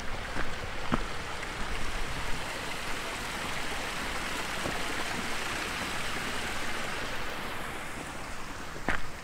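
Small mountain stream splashing down a little cascade over boulders, a steady rush of water that grows louder midway and fades near the end.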